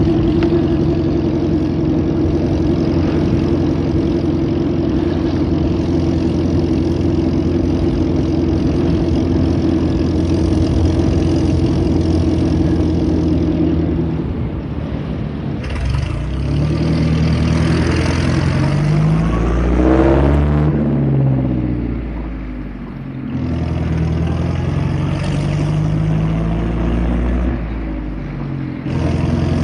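1929 Bentley's engine running under way, steady for about the first half; then the throttle eases off briefly, the engine pitch rises as it accelerates, drops away again, and it settles back to a steady pull with another short easing near the end.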